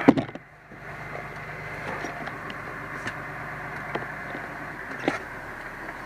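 A fire engine's engine idling steadily, heard from inside the cab. There is a loud knock right at the start and a few light knocks and clicks about once a second after that.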